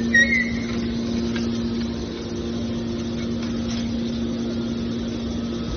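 Mini aluminium can baler's motor running with a steady hum, with a brief high squeak right at the start.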